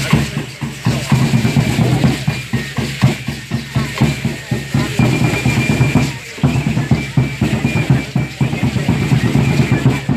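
Tall upright wooden drums (huehuetl) beating a fast, steady rhythm for Aztec dance, with a short break about six seconds in.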